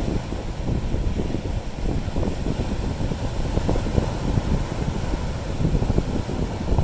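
Strong wind blowing on the microphone in uneven gusts, mostly a low rumble, over sea waves breaking and washing on rocks.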